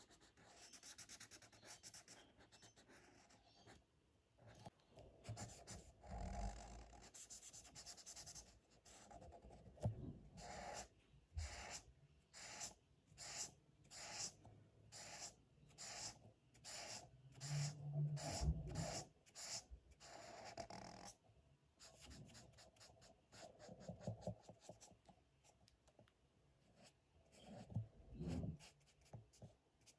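Felt-tip marker scratching back and forth on paper while colouring in, faint, with a regular run of about two strokes a second through the middle.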